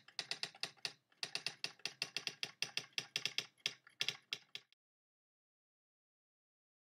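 Rapid keystroke clicks of a typing sound effect, in irregular runs with short pauses, stopping about four and a half seconds in.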